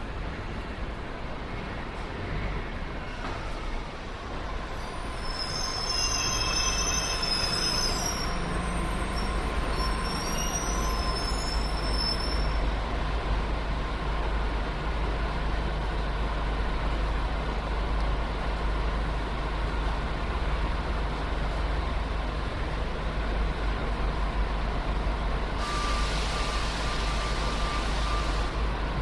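Train stopping at a station: a steady rumble, with high squeals from the brakes and wheels from about five seconds in to about twelve seconds. Near the end comes a burst of air hiss from the air brakes.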